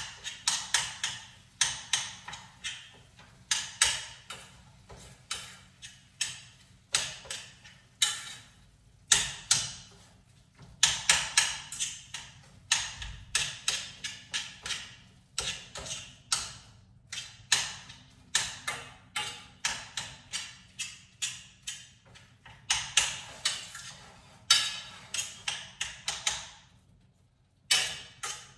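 A spoon chopping and breaking up ground beef in a pan, with an irregular run of sharp taps against the pan a few times a second and brief pauses between runs.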